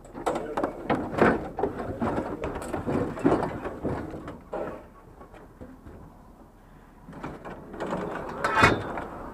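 Scrap metal rattling and knocking as a wire-grid metal panel is shifted against pipes on a loaded trailer: a busy run of clanks for the first few seconds, a lull, then one louder clank near the end.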